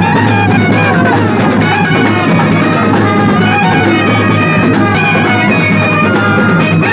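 Music: a reedy wind-instrument melody over drums and a steady low drone, continuous and loud.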